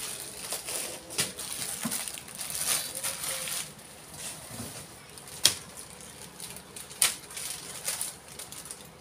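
Rustling and light clattering of packaged goods and plastic sachet strips being handled, with two sharp clicks, about five and a half and seven seconds in.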